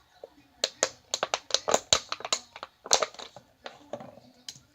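Slime being squeezed and poked by hand, giving a fast irregular run of sticky clicks and pops that starts about half a second in and thins out near the end.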